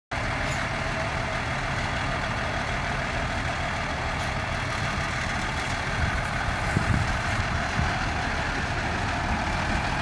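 Forest-service fire truck's diesel engine running steadily at idle, a continuous low rumble.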